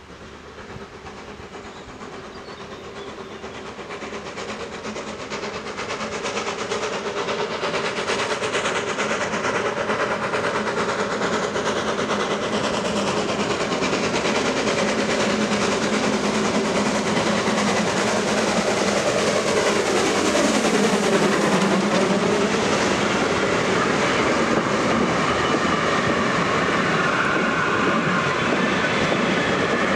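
Steam locomotive with its train of vintage coaches approaching, growing louder over the first eight seconds or so. It then passes close by, the coaches' wheels clattering over the rail joints.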